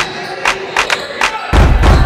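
Gym sounds during a basketball game: sharp, brief knocks from the ball and players' shoes on the hardwood court. A loud, low thud comes about three quarters of the way through.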